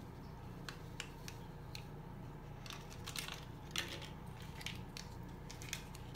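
Kool-Aid drink-mix packet crinkling and tapping as the powder is shaken out over a wet shirt: scattered soft crackles and ticks, thicker from about halfway on, over a steady low hum.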